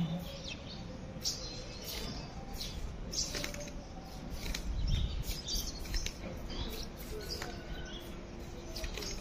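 Open-air ambience with scattered short bird chirps, a brief low rumble about halfway through, and a faint steady hum near the end.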